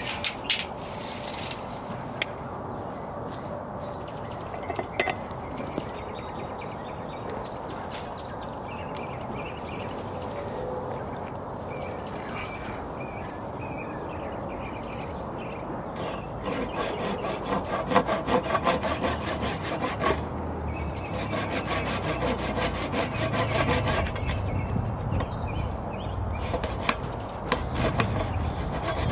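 Old hand saw with many of its teeth worn off, cutting across a wooden 4x4 post in rapid back-and-forth strokes that start a little past halfway, with a couple of short pauses. The blade is dull and barely cutting.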